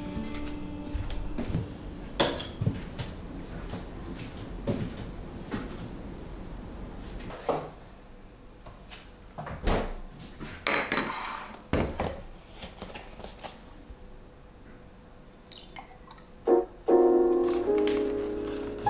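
Soft piano background music under a scattering of light knocks and clicks from small household objects being handled. Near the end the music grows much louder.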